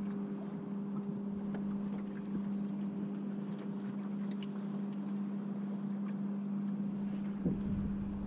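Water rushing and lapping along the hull of a small timber Heron sailing dinghy under sail, with wind noise and a steady low hum. A single light knock about seven and a half seconds in.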